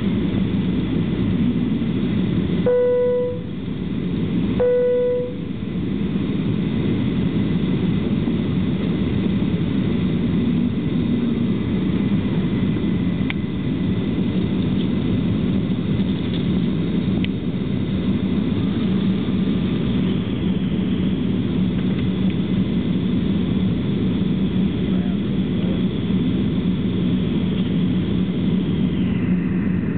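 Steady cabin noise of a Boeing 737-300 on approach: its CFM56-3 engines and the airflow make a low rumble with a steady hum. About three seconds in, two short chimes at the same pitch sound about two seconds apart from the cabin signal system.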